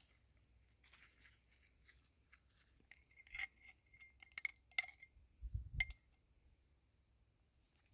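Small hard objects clinking and clicking as trapping gear is handled at a dirt-hole set. There is a quick run of light clinks about three to five seconds in, then a soft thud.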